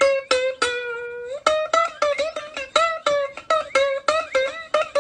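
Music: a plucked string instrument picking a bright melody of quick notes, about three a second, with one longer held note about a second in.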